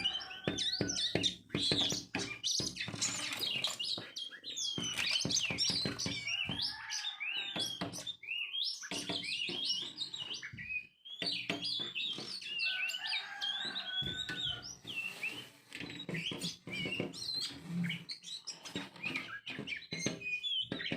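Many birds chirping and tweeting at once, a dense run of short, high gliding calls with brief pauses. A couple of longer, lower held calls stand out, once near the start and once about halfway through.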